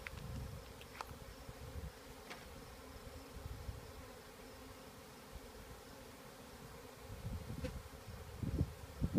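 A honey bee swarm buzzing steadily around an open hive box, a continuous hum of many bees. A few light clicks, and low bumps near the end.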